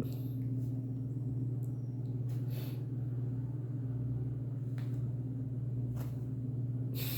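A steady low hum with no change in pitch or level, with a few faint soft clicks and rustles over it.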